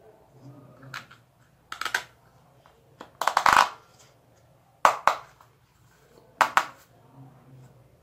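Hard plastic toy parts clicking and clattering as they are handled and fitted together, in about five short bursts, the longest and loudest about three and a half seconds in.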